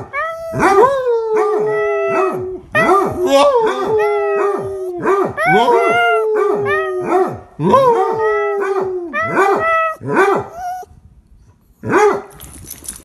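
Chihuahua howling: a run of long, wavering howls, each opening with a sharp rising yip and then held or sliding down in pitch, mixed with short yips. The howling stops about eleven seconds in, with one last short howl near the end.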